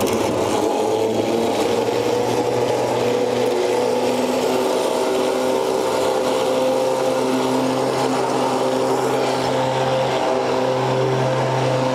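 Electric trailer winch motor running steadily as the cable is paid out along the trailer deck, its hum drifting slowly in pitch.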